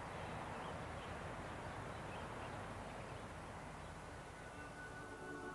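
Quiet outdoor ambience, a steady hiss of background noise with no clear single source. Near the end, music with held tones fades in.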